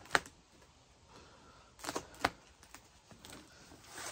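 Hard plastic CD cases clacking as they are picked up and sorted: a sharp clack just after the start, then a few more about two seconds in.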